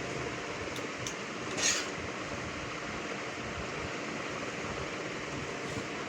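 Steady, even hiss-like background noise, with one brief clink about a second and a half in.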